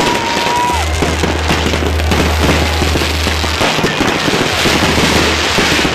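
New Year's fireworks going off overhead: many shells bursting at once in dense, continuous crackling and popping. A whistling tone stops about a second in.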